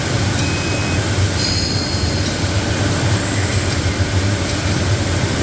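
Kaps-All A-6 bottle capping machine running while capping bottles: a steady motor hum with rattling, and two short high squeaks about half a second and a second and a half in.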